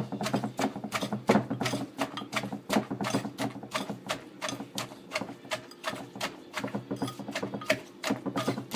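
Wooden pestle (sah) pounding green papaya salad in a kruk mortar, a quick, even run of knocks at about three or four strokes a second, bruising and mixing the papaya, tomato, lime, chili and garlic with the fish sauce.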